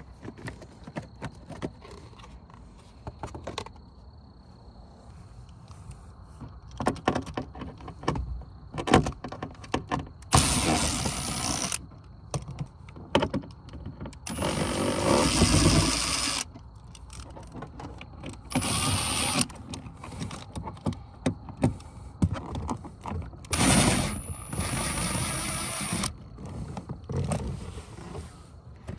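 Milwaukee M18 cordless power tool whirring in four short runs of one to two seconds each, with a high motor whine, while it spins out fasteners from the lower dashboard trim. Plastic trim clicks and knocks between the runs.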